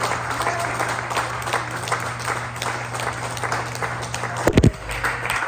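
Audience applauding, with dense overlapping claps. A single loud low thump comes about four and a half seconds in.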